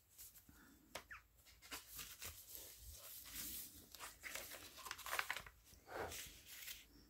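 Faint rustling of paper as the pages and tucked-in cards of a handmade hardcover journal are turned and smoothed by hand.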